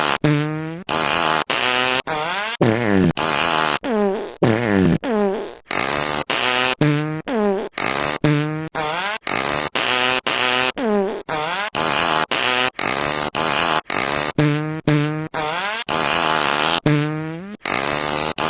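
A rapid string of fart sound effects, spliced one after another at about two a second. Each lasts around half a second and ends abruptly; many fall in pitch, and some hold a steady pitch.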